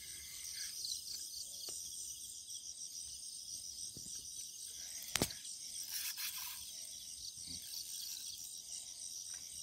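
Night insects chirping steadily in a high, finely pulsing chorus. A single sharp click stands out about five seconds in.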